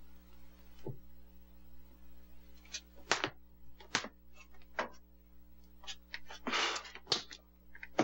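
Boxes and objects on a closet shelf being shifted and lifted down by hand: a scatter of light knocks and thuds with a brief rustle about two-thirds of the way through, over a steady low hum.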